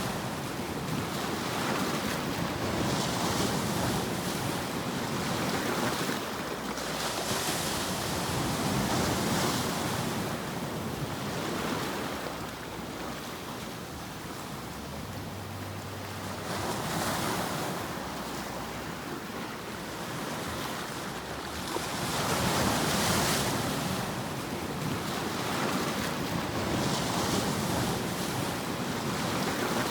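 Ocean surf: a continuous rushing wash that swells and fades every few seconds as the waves come in.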